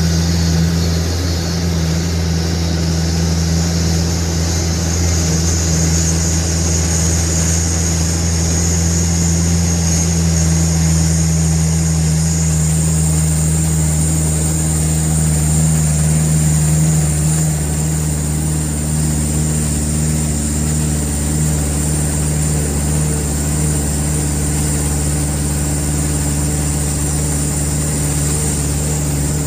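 A truck's diesel engine running steadily while driving, heard from inside the cab: an even low hum that holds the same pitch throughout.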